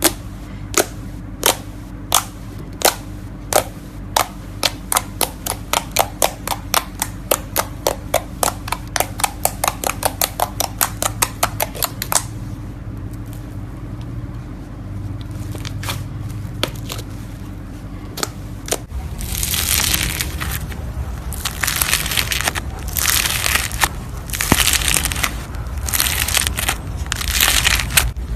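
Slime being played with: a run of sharp pops that speed up to about four a second, stopping about twelve seconds in. From about nineteen seconds in comes crunchy, crackling squishing in bursts.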